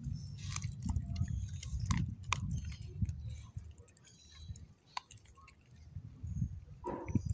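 Beagle chewing and crunching a raw chicken breast bone, with sharp cracks as the bone breaks between its teeth, quieter for a moment midway and loudest near the end.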